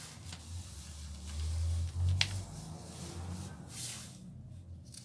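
Handling noise as the pencil and drawing paper are moved: a sharp click about two seconds in and short rustles near the end, over a low steady hum.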